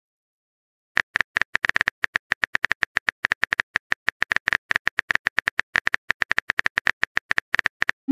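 Simulated phone keyboard typing: a rapid, even run of short tapping clicks, several a second, starting about a second in, while a chat message is being typed.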